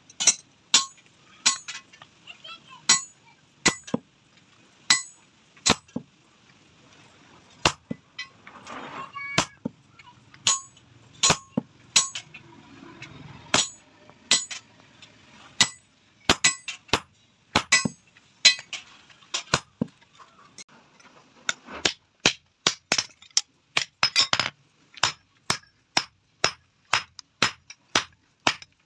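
Hammer blows ringing on a hot-cut chisel and anvil as red-hot flat steel bar stock is slit lengthwise. The sharp metallic strikes come about once a second at first, then faster and closer together in the last third.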